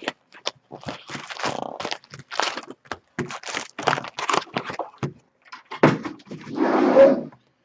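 Clear plastic shrink wrap being torn and crinkled off a cardboard trading-card box, in many sharp crackles with knocks of the box. A louder, longer rustle comes near the end.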